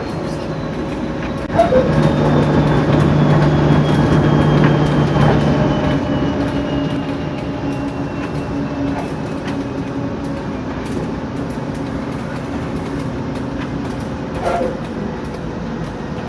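The 16-cylinder diesel of a TEP70 locomotive is running under way, with a thin high turbocharger whistle that sinks slowly in pitch. The engine drone swells about two seconds in and eases off after about six seconds. Now and then there is a knock.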